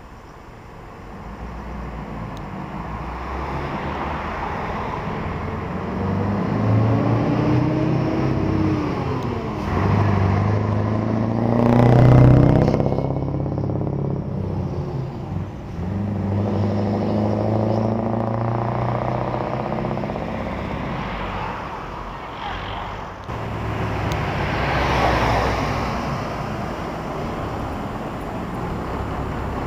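Heavy truck diesel engines driving past on the road, most likely the Scania 143M's V8. One passes close about twelve seconds in and is loudest there, its pitch rising as it nears and falling as it goes away. Further engines pass in the middle and near the end.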